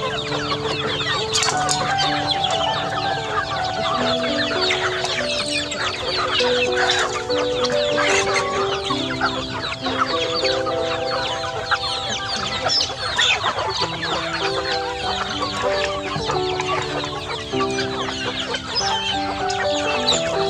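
A flock of chickens and young chicks clucking and peeping as they feed, many calls overlapping. Background music of long held notes plays along under them.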